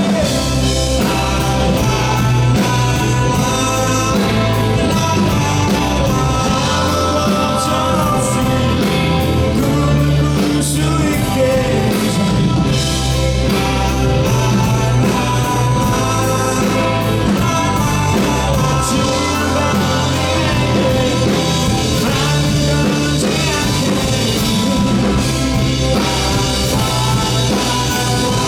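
Live rock band performance: singing over electric guitars, bass and a drum kit, loud and continuous.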